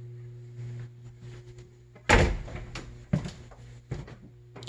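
An interior door knocks once about two seconds in, loudly, followed by a couple of lighter knocks and clicks, over a steady low hum.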